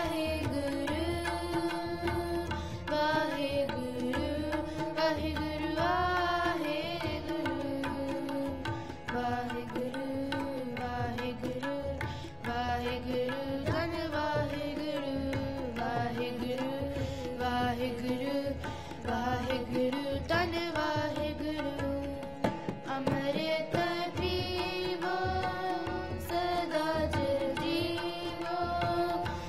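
Sikh kirtan: young voices singing a devotional hymn to harmoniums and a tabla pair. The melody rises and falls over the harmoniums' held reed chords, with steady tabla strokes beneath.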